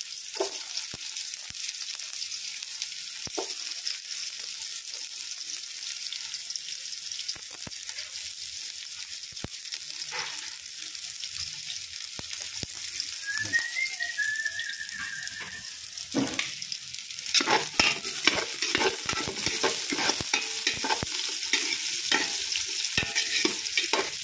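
Chopped garlic and red onion sizzling in hot oil in a metal pot, a steady frying hiss. From about two-thirds of the way through, a metal spoon stirs them, clinking and scraping against the pot.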